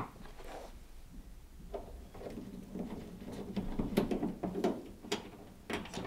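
Handling noise as the top panel of a Hotpoint condenser tumble dryer is taken off: a sharp click at the start, then light knocks, clicks and scraping that grow busier through the middle.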